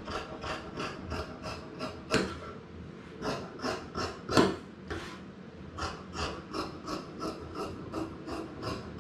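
Large fabric shears cutting through cloth on a wooden table: a steady run of crisp snips, about three a second, with a few louder ones among them.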